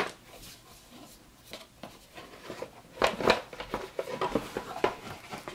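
A folded mounted cardboard game map being lifted out of its box and opened: light rubbing and soft knocks of thick board, with scattered clicks at first and busier handling from about three seconds in.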